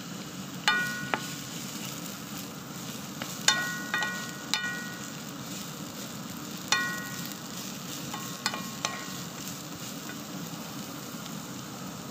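Red onion and sliced garlic sizzling in oil in a nonstick frying pan, stirred with a wooden spatula. The spatula knocks against the pan about nine times, each knock leaving a brief metallic ring.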